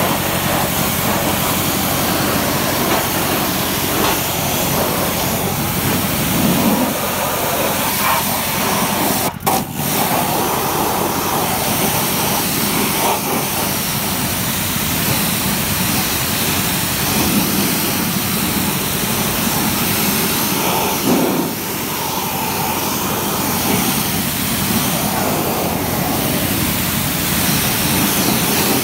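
High-pressure waterjet cleaner spraying galvanised steel angles: a loud, steady hiss of the water jet over the steady hum of the pump unit, breaking off briefly about nine seconds in.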